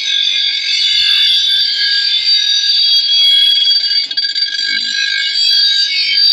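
Power grinder's spinning abrasive wheel grinding the steel edge of a long machete, a loud, steady, high-pitched screech as the blade is held against the wheel.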